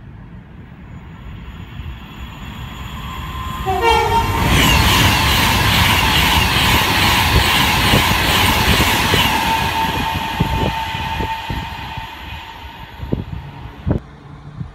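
Train approaching and passing close by, sounding its horn briefly about four seconds in, then a loud rush of wheels and bodywork that fades away with separate wheel clicks over rail joints near the end.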